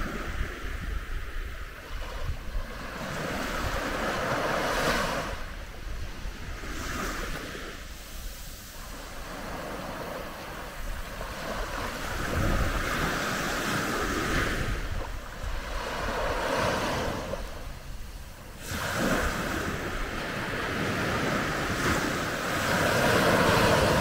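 Calm Mediterranean sea waves washing onto a sandy beach, each wash swelling and falling back every few seconds.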